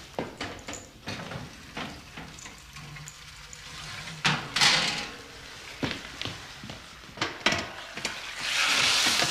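Crockery clinking and knocking in scattered short strikes, with two stretches of hissing noise: a short one about four seconds in and a longer one near the end.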